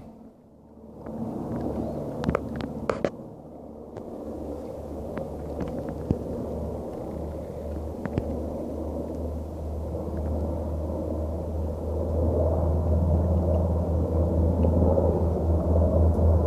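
Two military helicopters overhead: a low rotor drone that grows steadily louder over the second half, with a pulsing rotor beat near the end as they come closer. A few sharp clicks in the first half.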